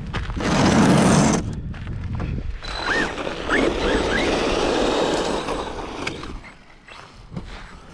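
Arrma Mojave 4S RC truck's brushless motor whining and revving as the truck is driven, with short rising-and-falling sweeps in pitch over the noise of the tyres; a loud rush of noise comes about half a second in.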